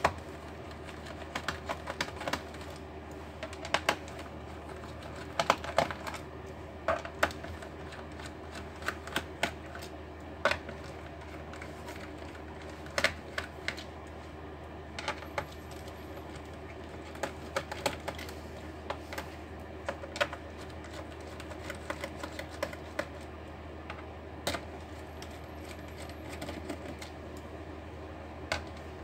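Irregular sharp clicks and taps of small hand tools and plastic laptop case parts being handled during disassembly, over a steady low hum.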